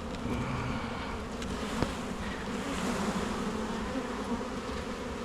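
Honeybees buzzing steadily around an open hive and a frame just lifted from it, with one light click about two seconds in.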